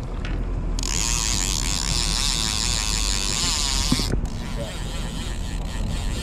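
Boat motor running steadily, with a hiss that starts about a second in and cuts off sharply about four seconds in.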